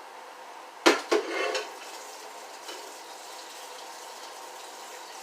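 Two sharp clanks of a metal cooking pot about a second in, the second ringing briefly, then a steady hiss of tap water running as water is added to the cabbage pot.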